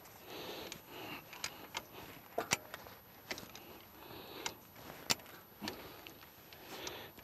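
Ratchet come-along being worked by hand to tension woven-wire fencing, its pawl giving a string of sharp, irregular clicks.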